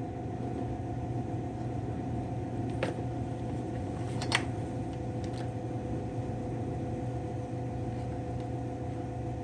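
Steady mechanical hum of a background machine such as a fan or heater, with two light clicks about three and four and a half seconds in.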